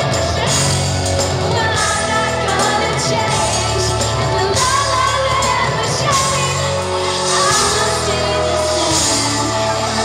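Live pop song played loud through a hall's sound system, with women's voices singing into microphones over it, heard from among the audience in a large hall.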